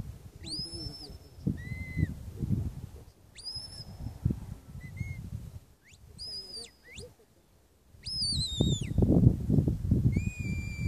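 Sheepdog handler's whistle commands: a series of about seven short, shrill whistled notes, some rising, some falling, the last a longer held note. Wind rumbles on the microphone, heavier over the last few seconds.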